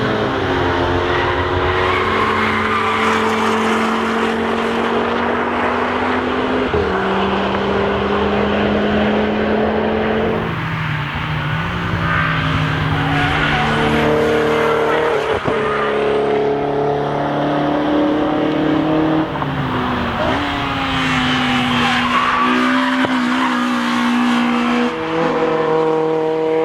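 Honda Civic EP3's four-cylinder VTEC engine at full throttle heard on board, climbing steadily in pitch through each gear and dropping sharply at every upshift, about every four seconds.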